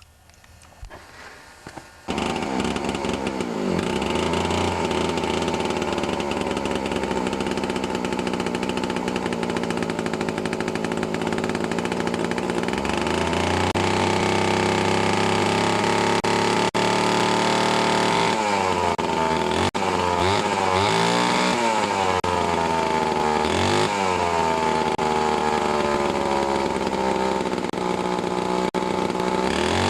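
Vintage Homelite C9 chainsaw's two-stroke engine starting about two seconds in and running steadily. In the second half the throttle is worked, the engine revving up and falling back several times.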